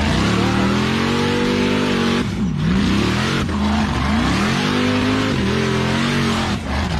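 Off-road mega truck's engine revving hard under load as its tractor tyres dig up a dirt mound. The revs sag sharply twice, about two and a half seconds in and near the end, and climb back each time, over a steady hiss of tyres churning dirt.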